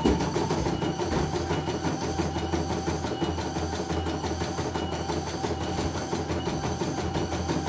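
CNY E900 computerized embroidery machine stitching a design: a rapid, even clatter of the needle going in and out over the steady hum of its motor as the embroidery arm moves the hoop.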